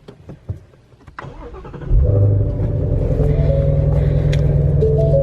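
Ford Shelby GT350's 5.2-litre flat-plane-crank V8 started: a few light clicks, the starter turning it over, and the engine catching about two seconds in, then idling steadily.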